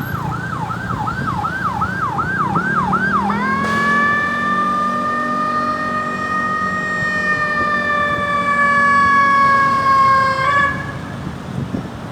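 Ambulance electronic siren in fast yelp, about three quick pitch sweeps a second, switching about three and a half seconds in to one long held tone that sinks slowly in pitch for about seven seconds, then cuts off suddenly. Vehicle engine and road noise run underneath.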